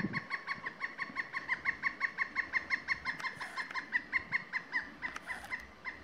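Pileated woodpecker calling: a long, even run of quick repeated notes, about six or seven a second, that stops near the end.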